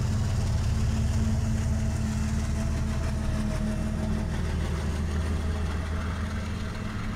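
Canadian Pacific GE ES44AC diesel locomotive, a mid-train unit, passing close with its engine running steadily, over the rumble of double-stack container cars rolling by. The sound eases slightly in the second half.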